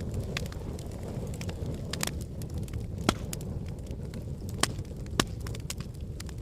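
Wood fire burning in a fireplace: a steady low rush of flames with scattered crackles and a few sharp pops, the loudest about three seconds in and two close together near the end.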